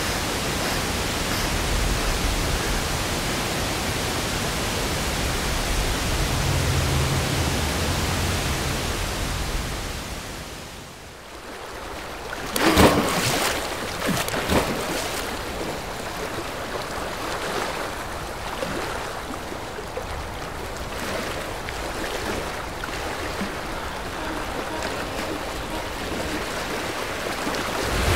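A steady rushing noise that fades out about ten seconds in, then a sudden splash of water, followed by smaller splashes and lapping water from a person swimming.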